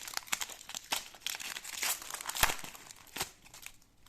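Plastic wrapper of a trading-card pack being torn open and crinkled by hand: a dense run of crackles, loudest about two and a half seconds in, tailing off near the end.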